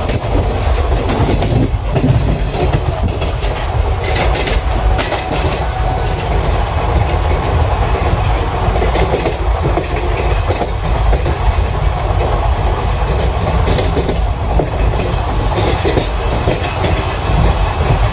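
Wheels of an Indian Railways ICF passenger coach running at speed, heard from inside the coach: a steady heavy rumble with sharp clicks as the wheels cross rail joints.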